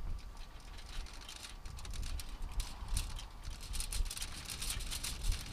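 Close, irregular crackling and clicking of a person eating a burrito, chewing and handling it, over a steady low rumble.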